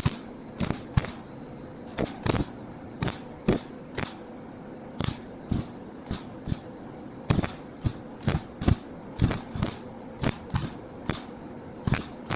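A series of sharp taps or knocks, irregularly spaced at roughly two a second, over a steady background hum.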